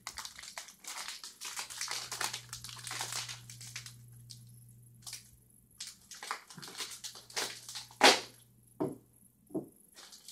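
Plastic snack bag being opened and handled, crackling and crinkling densely for the first few seconds, then in scattered crackles, with one sharp loud crackle about eight seconds in.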